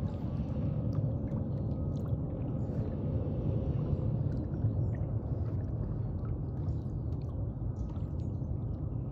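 Water gurgling and lapping around a kayak's hull as it moves, with scattered faint ticks over a steady low rumble.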